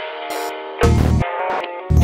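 Electronic intro music: steady chords, with a heavy bass beat that cuts in about a second in, drops out briefly and comes back near the end.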